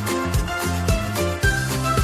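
Background music with a steady beat, about two beats a second, under a melody of held notes.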